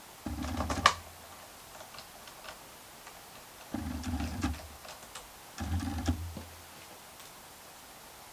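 Three short bouts of clicking and knocking as the laptop is handled on the bench, with key or case taps.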